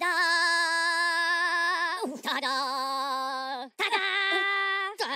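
A high voice singing three long held notes with a wavering vibrato, separated by short breaks.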